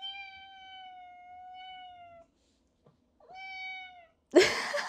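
Domestic cat meowing insistently: a long drawn-out meow of about two seconds, a shorter one after a pause, then a louder, rougher sound near the end.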